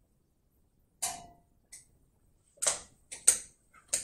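A knitted cardigan being pulled on, brushing and rustling close to the microphone. About a second of quiet, then a handful of short scratchy clicks and knocks, the loudest a little over three seconds in.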